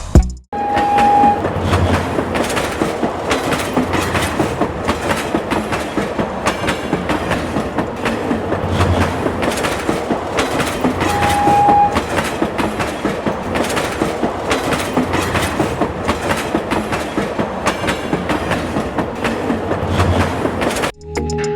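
Continuous rapid mechanical clattering, with two short steady beeps about ten seconds apart.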